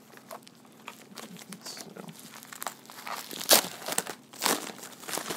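Padded mailer envelope crinkling and rustling as it is opened and the boxed gift set is pulled out of it. The crackles come irregularly, with the loudest about three and a half and four and a half seconds in.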